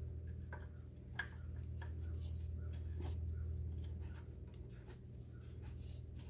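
Oil dipstick cap on a GY6 scooter engine being handled: light rubbing and a few small clicks, the sharpest about a second in, over a steady low hum.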